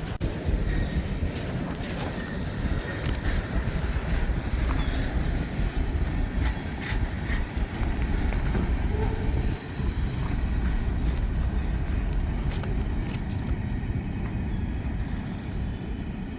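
Freight train cars rolling past: a steady rumble of steel wheels on the rails, with scattered clicks and clanks.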